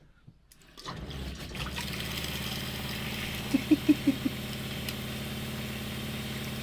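Newly plumbed boat water pump running with a steady hum as tap water pours into a steel saucepan. It starts about a second in, when the tap is opened.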